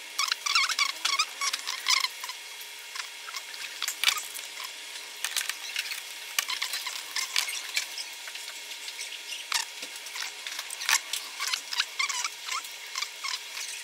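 Fast-forwarded handling sounds of a Fujifilm X-T100 camera and a Godox TT520II flash: rapid, high-pitched clicks, taps and squeaky chirps as buttons are pressed and the flash is fitted and handled. The clicks are densest in the first two seconds and sparser after.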